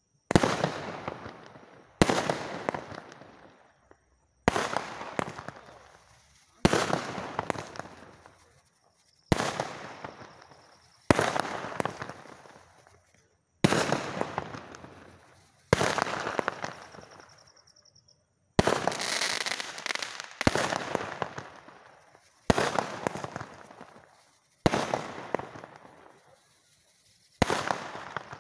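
Multi-shot firework firing multicolour shots with crackling, about one every two seconds: each a sharp bang followed by a fading crackle.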